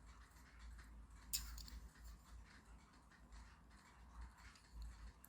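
Near silence with faint small clicks and scratches, and one sharper click about a second in.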